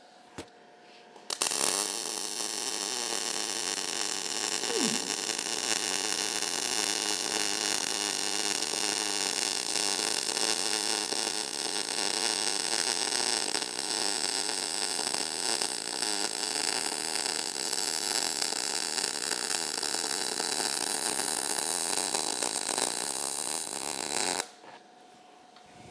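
MIG welding arc running steadily as a lap weld is laid on steel plate, a continuous crackle that starts about a second in, after a brief click, and cuts off sharply near the end.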